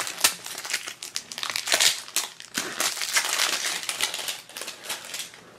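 Thin plastic wrapping crinkling as it is handled and pulled off a toy blind pack, an irregular run of crackles that dies down near the end.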